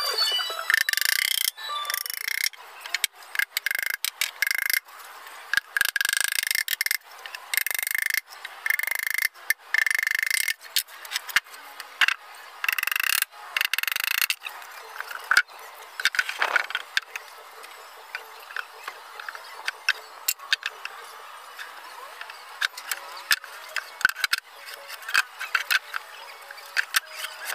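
Speaker-box assembly work: irregular sharp clicks and knocks with brief bursts of tool noise, the bursts coming thickest in the first half.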